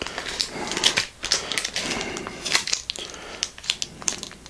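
Handling noise: a quick, irregular run of small clicks and rustles, like plastic being fumbled and buttons pressed while trying to power up a small TV with its remote.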